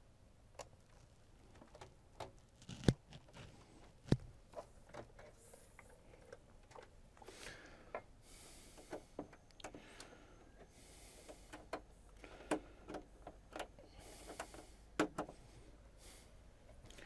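Scattered clicks, knocks and short rustles of hands reassembling a flat-screen TV, with two louder knocks about three and four seconds in.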